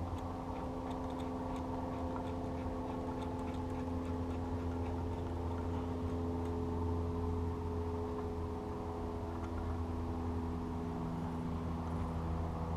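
Steady low mechanical hum, unchanging throughout, with a run of faint light clicks in the first half or so.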